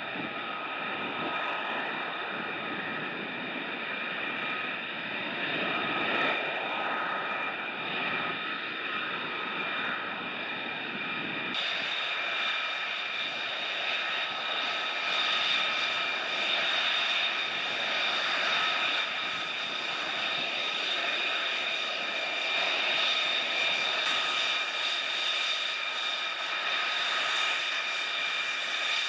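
Jet aircraft engine running, a steady high whine over a dense rushing noise. About a third of the way through, the sound changes abruptly, becoming brighter and thinner.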